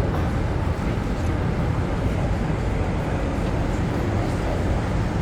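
Steady low rushing roar of Niagara Falls' falling water, even and unbroken.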